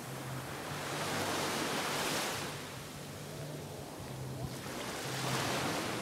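Small waves breaking and washing up on a sandy beach, the surf swelling twice: about a second in and again near the end.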